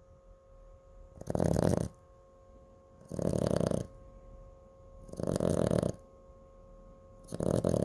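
Sleeping Chihuahua snoring: four loud snores about two seconds apart, each lasting under a second.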